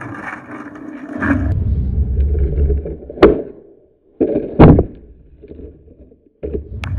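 Skateboard wheels rolling and rumbling on rough concrete, a sharp snap of the tail popping about three seconds in, then the board landing with a loud clack and rolling on.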